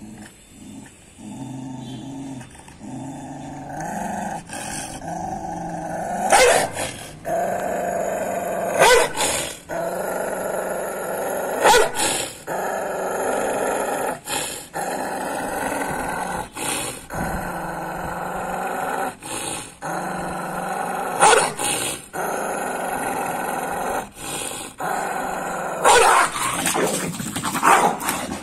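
Pit bull growling continuously, with a handful of short, sharp barks breaking through every few seconds.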